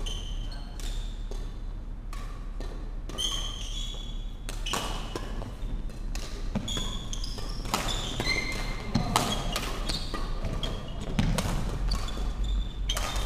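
Badminton rally: sharp racket strikes on the shuttlecock and brief shoe squeaks on the wooden court floor, ringing in a large sports hall.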